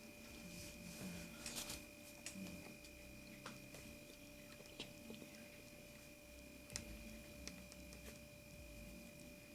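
Near silence: a faint steady electrical hum of two thin tones, with a few soft scattered clicks.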